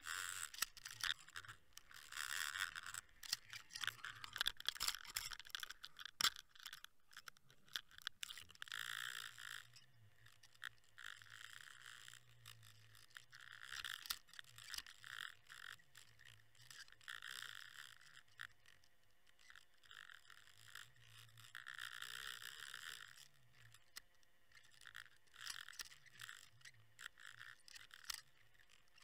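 Underwater recording from a camera housing towed on a fishing line: irregular clicks, scrapes and rattles, with swells of water hiss every few seconds and a faint low hum.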